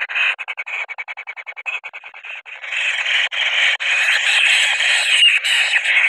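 Kingfisher nestlings giving harsh, rasping calls: a fast chatter of short rasps, then from about two and a half seconds in a louder, almost continuous screeching as they grapple with each other.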